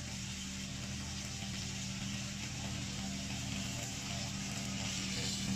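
The engine of a remote-controlled tracked mower runs steadily as the machine cuts into tall reeds, growing a little louder near the end.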